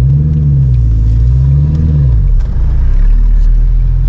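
Straight-piped Ford GT's supercharged V8, heard from inside the cabin, running loud at low speed. Its pitch rises and falls twice with light throttle over the first two seconds, then holds at a steady low drone.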